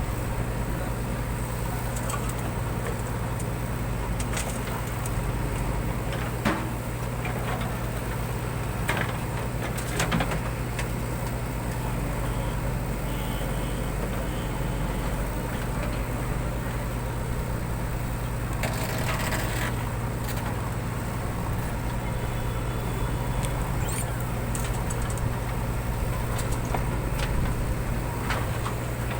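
JCB 3DX backhoe loader's diesel engine running steadily with a low drone, with a few sharp knocks and a brief rushing noise about two-thirds of the way through.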